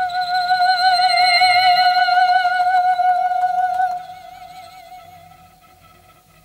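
Background music: one long held note with vibrato, its upper tones wavering. It fades about four seconds in and leaves fainter, wavering high tones.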